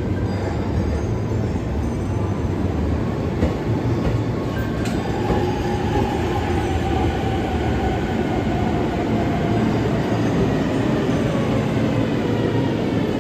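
JR East E231-1000 series electric multiple unit pulling slowly into a station platform: a steady rumble of wheels and running gear. From about five seconds in, a faint whine slowly falls in pitch as the train slows.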